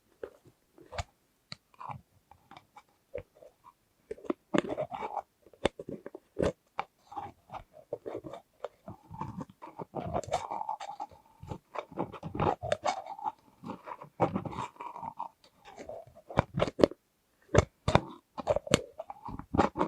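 Close-miked ASMR handling of small plastic lids and containers by hand. A few scattered sharp clicks and taps come first, then from about four seconds in dense crackly, crunchy handling noise with frequent sharp clicks.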